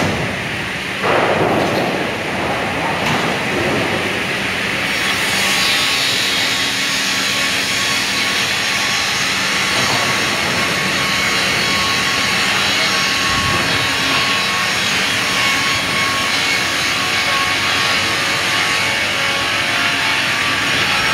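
Sawmill machinery running steadily: belt conveyor drives and the processing line give a continuous mechanical drone with a steady hum and whine. It jumps suddenly louder about a second in.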